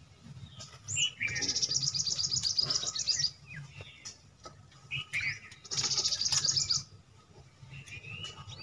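Small songbird singing: a rapid, high trill lasting about two seconds, then a shorter one about a second long, with brief chirps between.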